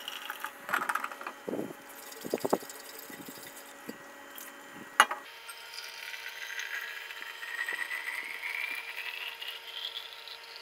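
A few clicks and knocks of handling, with one sharp click about halfway, then hot water poured into a stainless-steel Contigo thermos. The pouring rises steadily in pitch as the bottle fills.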